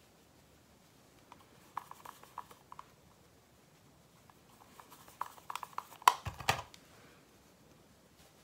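Light clicks and taps of makeup items being handled, a few about two seconds in and a busier cluster from about five seconds, with a louder knock about six seconds in.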